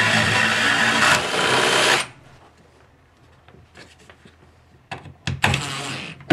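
Cordless drill boring into a wooden wall with a long bit, running steadily and stopping sharply about two seconds in. Near the end, short bursts of the drill driving screws through a plastic USB outlet plate into the wood.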